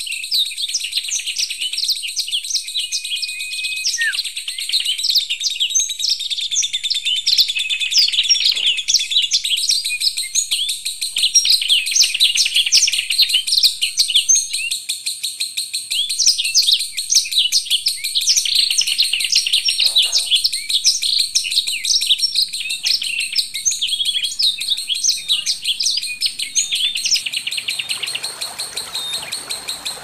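Songbirds singing in a dense, fast run of short, high chirps and twitters, over a thin, steady high tone. A soft hiss comes in near the end.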